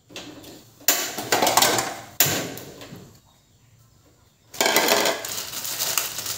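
Cooking sounds at a kitchen stove: two sudden noisy clatters that each fade over about a second, a short lull, then a steady crackly rustle from about four and a half seconds in.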